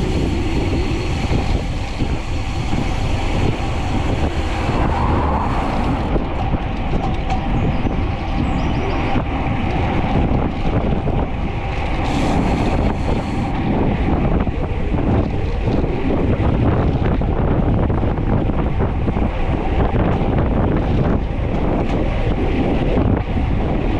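Wind rushing over a bike-mounted action camera's microphone during a descent, with steady tyre and road noise underneath.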